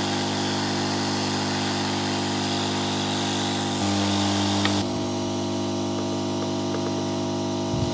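Hot-air rework station handpiece blowing a steady stream of air, with a fan hum and a rushing hiss, aimed at a surface-mount IC to melt its solder and lift the chip off the board. The hum briefly gets louder just before the middle, and the hiss drops off about five seconds in as the nozzle is lifted from the board.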